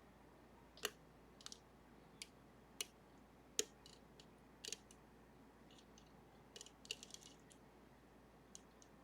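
Irregular light clicks and ticks, a dozen or so with short gaps, from a pick working the levers of a Sargent and Greenleaf 4440 series safety deposit box lever lock.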